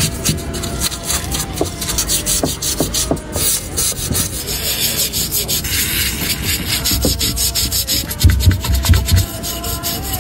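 Rapid, repeated abrasive rubbing strokes, like hand sanding or scrubbing a part, with a few heavier low thumps about eight seconds in.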